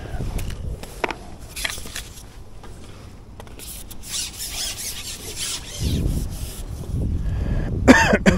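Fishing pole being handled, its carbon sections rubbing and scraping against the hands and kit with scattered clicks. Wind buffets the microphone in the second half, and a short loud sound comes just before the end.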